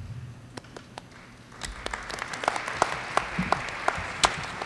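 Audience applauding: a few scattered claps at first, then steady applause filling in about a second and a half in.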